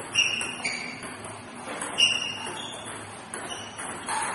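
Table tennis rally: the ball clicking off the bats and bouncing on the table, a run of short, sharp pings a fraction of a second to a second or so apart.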